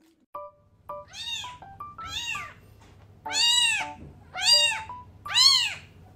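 A two-day-old kitten crying loudly: five high, arched mews about a second apart, the last three the loudest.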